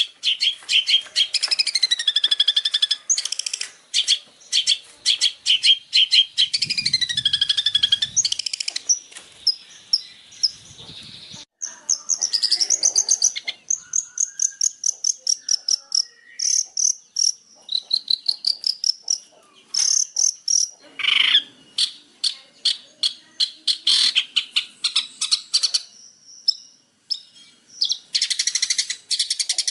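Long-tailed shrike (cendet) singing: fast chattering runs of high, sharp notes, mixed with whistled glides and trills.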